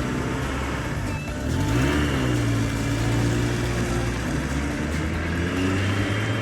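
Motor vehicle engine running: its pitch rises about a second and a half in, then it holds steady at the higher speed.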